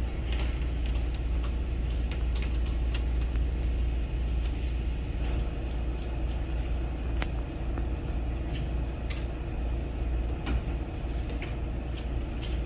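Steady low hum, with scattered light clicks and knocks over it.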